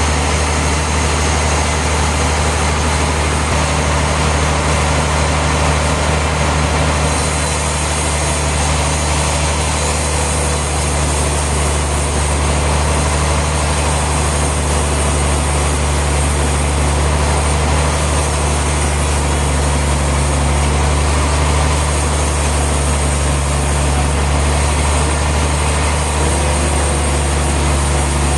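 Heavy sawmill machinery's engine running steadily, a constant low drone.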